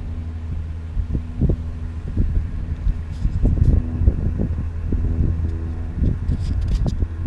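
A vehicle's engine running steadily with a low rumble, with scattered knocks and a little wind on the microphone.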